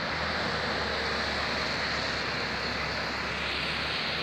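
Double-decker bus driving past close by over steady street traffic noise; its low engine hum fades away near the end as it clears.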